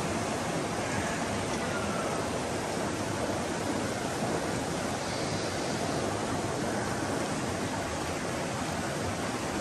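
Steady rush of water from a waterfall and river.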